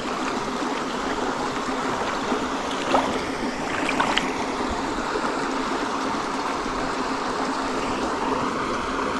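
Steady rush of flowing stream water, with water pouring out of culvert pipes into the stream.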